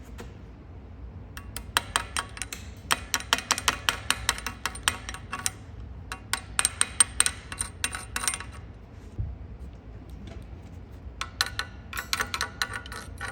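Rapid metal-on-metal tapping and clinking on a welded cast-iron part, in four bursts of quick sharp taps with short pauses between.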